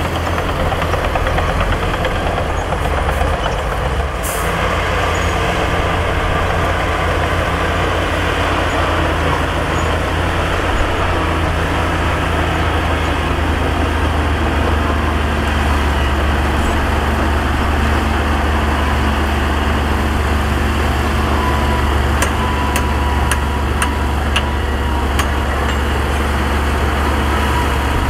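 Heavy diesel engine of construction equipment running steadily with a deep drone. A faint steady whine joins about halfway through, and a few sharp clicks come near the end.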